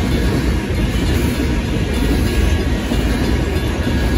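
Freight cars of a Union Pacific grain train rolling steadily past a grade crossing: a continuous rumble of steel wheels on rail.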